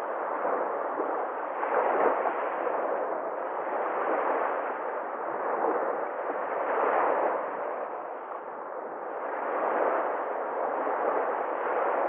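Small sea waves breaking and washing up over a pebble beach, the surf swelling and easing every few seconds.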